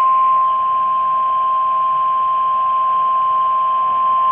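NOAA Weather Radio warning alarm tone: one steady 1050 Hz tone over radio hiss, the alert that announces a warning such as a tornado warning.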